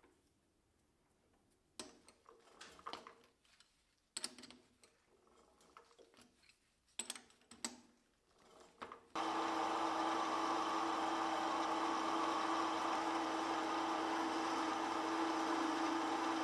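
Scattered metal clicks and knocks as a workpiece is set in a metal lathe's three-jaw chuck. About nine seconds in, the lathe starts and runs steadily with a constant hum while a turning tool cuts the end of a steel screw.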